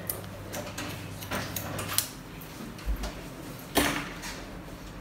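Thinning shears snipping through the ends of hair: a string of irregular sharp snips and clicks, the loudest about two seconds in and just before the four-second mark.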